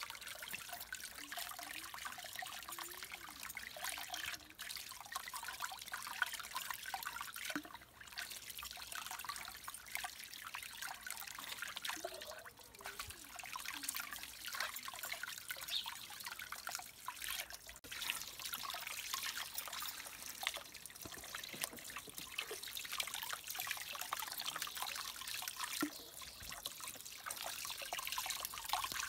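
Water trickling from a garden hose into a plastic basin and splashing as hands wash tomatoes, onions and cucumbers in it: a steady patter of small splashes and drips.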